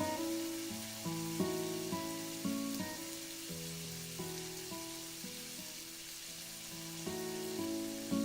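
Background music: a gentle melody of separate plucked or struck notes, quieter in the middle and fuller again near the end, over a steady soft hiss.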